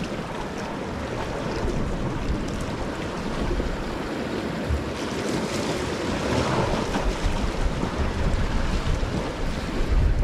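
Sea waves washing against shore rocks, with wind buffeting the microphone in a low rumble that grows stronger toward the end.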